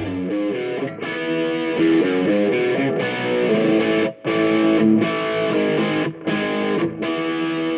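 Intro music: an electric guitar playing with distortion, a tune of changing notes that drops out briefly twice.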